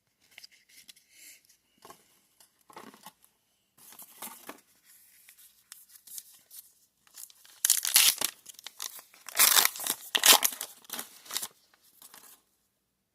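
Foil booster-pack wrapper being torn open and crinkled, after some light handling of cards and packs; the loudest tearing comes in two stretches in the second half.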